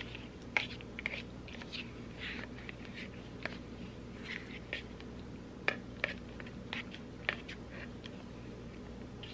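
Spoon stirring and scraping in a plastic Chobani yogurt cup, mixing in the toppings: irregular light clicks and short scrapes, over a steady low hum.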